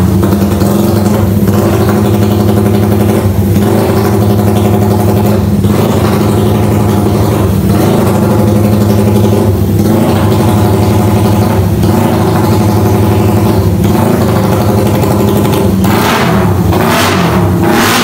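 Motorcycle engine running loud and steady, its throttle blipped now and then, with two quick revs that rise and fall back near the end. The engine has just been brought back to life and still needs tuning.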